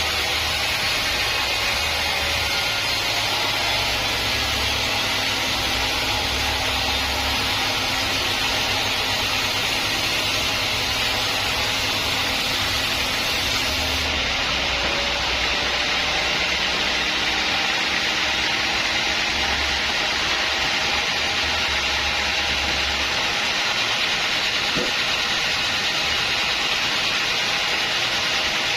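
Sawmill machinery running steadily: a constant, even mechanical noise with a low rumble underneath.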